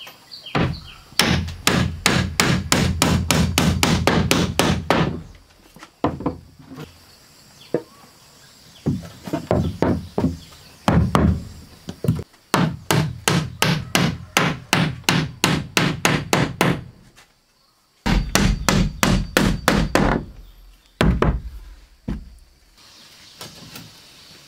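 Hammer striking wood, nails being driven in quick runs of about five blows a second, in several bursts with short pauses between.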